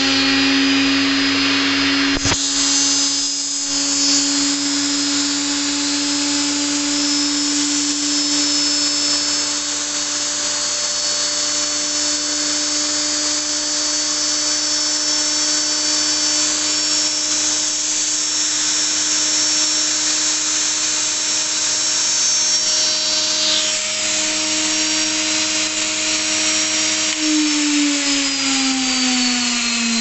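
Welling washing-machine universal motor running on the bench, turning anticlockwise: a steady whine over the hiss of its carbon brushes on the commutator. A single click about two seconds in, and near the end the whine falls in pitch as the motor slows down.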